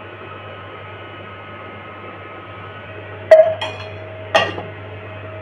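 Stainless steel container clinking sharply twice, each with a short metallic ring, about three seconds in and again a second later. A faint steady hum runs underneath.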